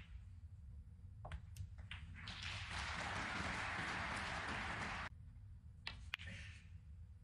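Snooker balls clicking sharply as a shot is played, then audience applause for about three seconds that cuts off abruptly, followed by two more sharp clicks of cue and balls.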